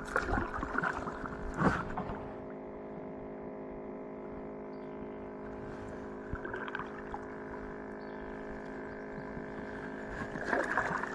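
A kayak being paddled through shallow water: a couple of sharp knocks of the paddle against the hull in the first two seconds, then quieter water noise, with more paddling near the end. A faint steady hum runs underneath.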